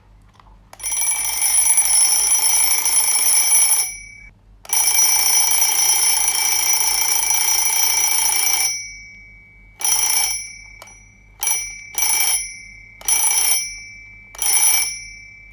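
IKEA Dekad twin-bell mechanical alarm clock ringing, its hammer rattling against the two metal bells: two long rings of about three and four seconds, then five short bursts.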